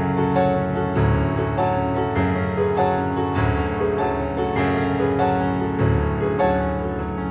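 Gentle background piano music, notes struck about two a second over sustained chords.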